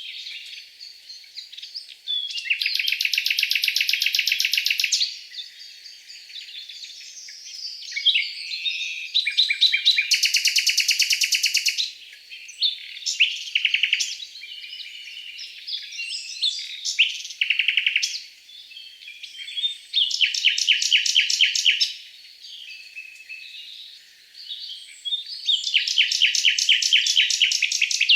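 Songbirds singing: four fast, buzzy trills of about two to three seconds each, with scattered shorter chirps and whistles between them.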